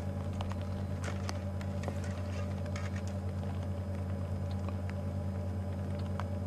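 Vehicle engine idling with a steady low hum, with scattered faint clicks and crackles over it.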